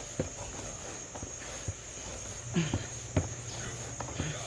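Steady high-pitched chirring of night insects, with a few light knocks and clicks of things handled on a table.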